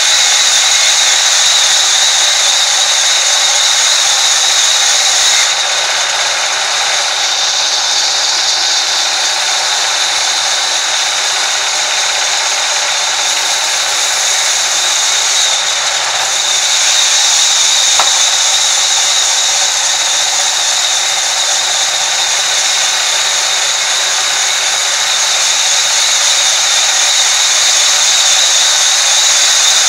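Vertical band saw mill running and cutting lengthwise through a large wooden slab: a steady, loud, high-pitched whine and hiss of the blade in the wood.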